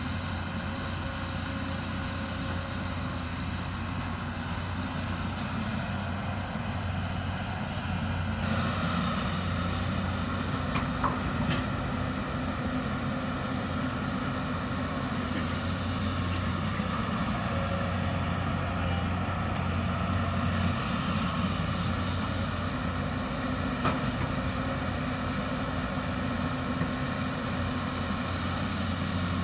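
Hyundai 220 excavator's diesel engine running steadily under work. It gets louder and works harder about a third of the way in, with a couple of faint knocks.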